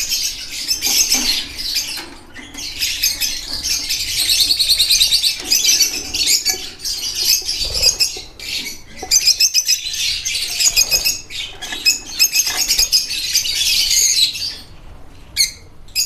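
A colony of lovebirds chattering: many overlapping high-pitched chirps, squawks and rapid trills at once, thinning out near the end.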